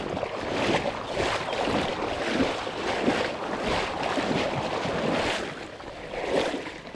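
Irregular water splashing and sloshing in uneven surges, with some wind noise on the microphone.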